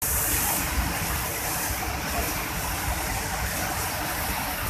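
A waterfall pouring over a wide ledge into churning white water: a steady rush of falling water with a low rumble beneath it. The fall is very noisy.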